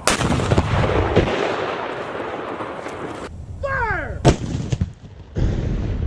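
Civil War field cannon firing: a sharp blast right at the start rolling off into a long rumble, then a second, louder shot about four seconds later.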